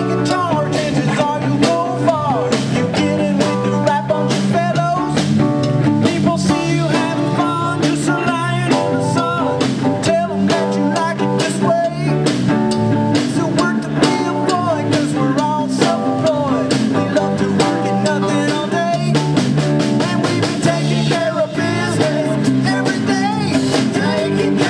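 A blues band playing live: drums keep a steady beat under bass, with a bending lead melody and some singing over the top.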